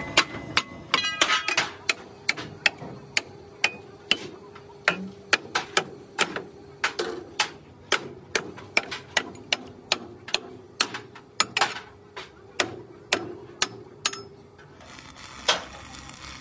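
Hammer blows on the hot steel chassis rail of an Isuzu truck, about two a second and uneven, ringing off the metal. Near the end an electric arc welder strikes up on the rail with a steady crackling hiss.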